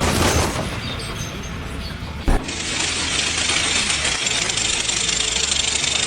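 Mechanical rattling and clatter, with one sharp knock about two seconds in, after which a steady hissing rattle sets in.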